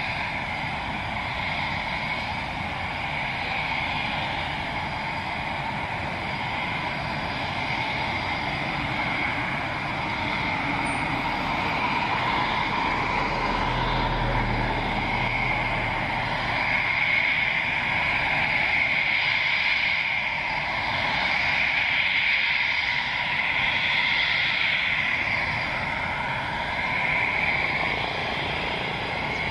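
Eurofighter Typhoon's twin EJ200 turbofan engines running on the ground with a steady whine and hiss, swelling slightly in the second half. A brief low rumble joins about halfway through.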